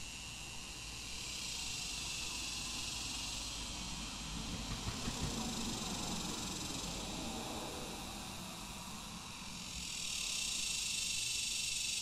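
Cicadas droning in a steady high-pitched chorus that swells louder twice, near the start and again near the end. About halfway through, a low rumble rises and fades, typical of a vehicle passing on the road.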